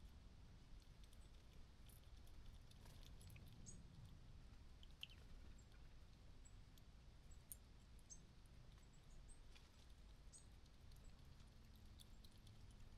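Near silence: a faint low hum, with scattered faint, short high-pitched chirps and ticks.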